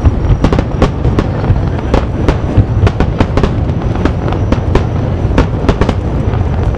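Aerial firework shells bursting in quick succession: many sharp bangs and pops over a steady low rumble, coming thickest in the first few seconds.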